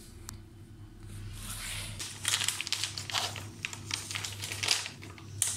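Plastic cat food packaging crinkling and rustling in a string of irregular short crackles as the food is put away.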